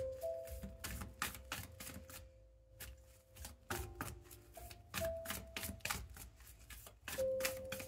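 Hands shuffling a deck of large oracle cards, the cards slapping and rustling in quick, irregular strokes that pause briefly about two and a half seconds in. Soft background music with long held notes runs underneath.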